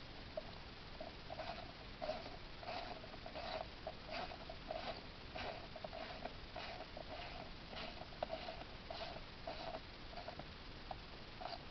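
A 1/4-inch ratchet on an extension clicking in short runs, about three strokes every two seconds, as an intake manifold bolt is turned in.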